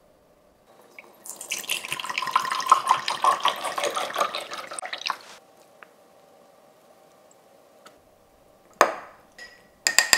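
Liquid poured into a small glass measuring cup, splashing for about four seconds, then stopping. Near the end, a metal spoon knocks once against the glass, followed by a couple of ringing clinks.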